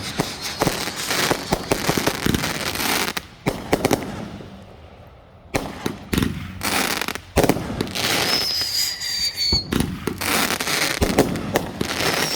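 Fireworks going off: a dense run of crackles and bangs that fades to a lull around four seconds in, then more sharp bangs. About eight seconds in a whistling firework gives a high whistle lasting about a second and a half, falling slightly in pitch, and another starts near the end.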